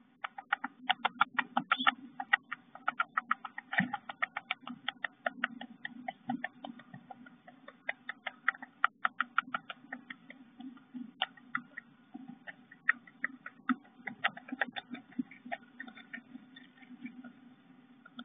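Eastern bluebird's bill tapping and clicking at the eggs and eggshell in the nest box: rapid, irregular clicks, several a second and in bursts, over a steady low hum from the nest-box camera's tinny microphone.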